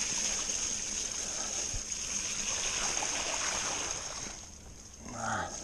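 Mountain bike tyres rolling through wet mud and puddles, a steady splashing rush that eases off about four seconds in. A brief vocal sound from the rider near the end.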